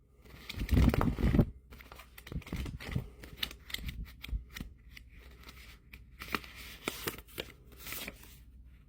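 Paper envelopes and cash bills being handled: rustling and crinkling, with a louder burst of handling about a second in and scattered short rustles and clicks after.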